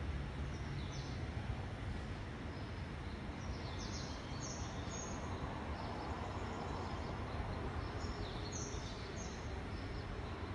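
Short, high bird chirps in three brief clusters, about a second in, around four seconds in and near the end, over a steady background rumble.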